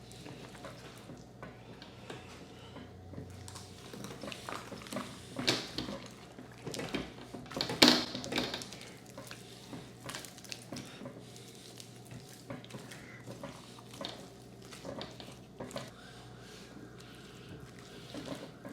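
Hands working butter and seasoning over and under the skin of a raw turkey: soft wet handling noises with scattered small clicks and knocks, the loudest knock about eight seconds in.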